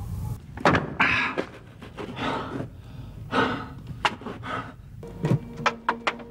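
A man gasping and panting hard as he forces his way through broken brickwork. Stones scrape and knock, with sharper knocks of shifting rubble near the end.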